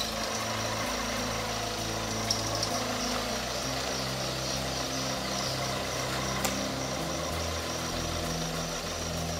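Vehicle engines running at low revs: a steady low rumble whose note shifts now and then, with a couple of faint clicks.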